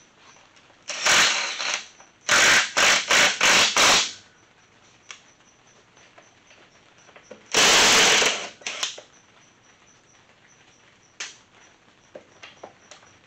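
Cordless impact driver run in short trigger pulls on the bolts of an NP231 transfer case housing. There is one burst about a second in, five quick bursts between two and four seconds, and a longer burst near eight seconds. A few light metallic clicks follow near the end.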